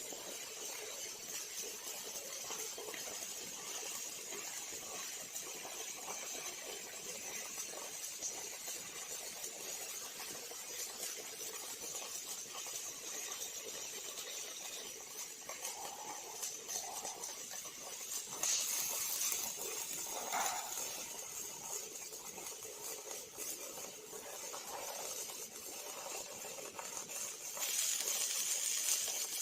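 Robotic arc welding: a steady, crackling hiss from the welding arc, which grows louder suddenly about 18 seconds in and again near the end.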